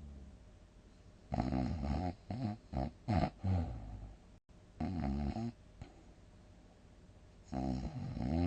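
A sleeping person snoring heavily in separate bouts. A long snore comes about a second in, then a quick run of short, choppy snores. Another snore follows at about five seconds, and a last one starts near the end.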